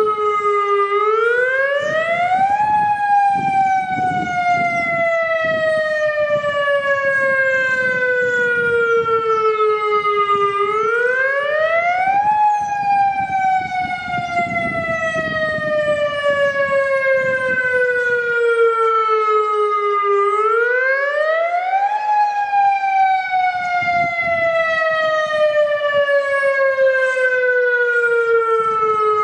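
Federal Signal Modulator 1004 outdoor warning siren sounding a wail in a test of the tornado warning system. Its pitch climbs quickly for about two seconds, then falls slowly for about eight, repeating three times.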